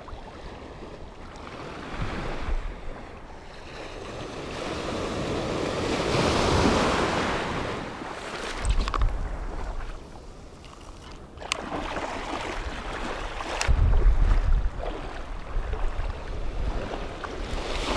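Small sea waves washing around in shallow surf, swelling to a louder wash about six seconds in, with wind buffeting the microphone. A few sharp clicks stand out over the water.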